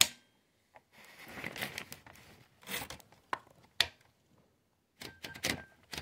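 Smith Corona Standard portable typewriter's platen and carriage mechanism being worked by hand at the platen knob: a sharp click, two rasping ratchet runs, two single clicks, then a quick cluster of clicks near the end.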